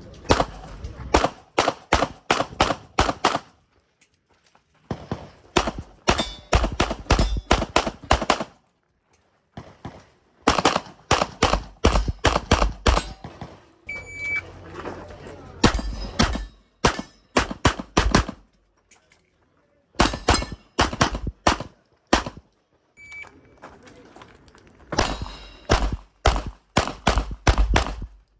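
Pistol shots fired in fast strings of several shots each, about four to six a second, the strings separated by short pauses, as in IPSC competition stages. Twice a short high electronic beep sounds just before a string, the shot timer's start signal.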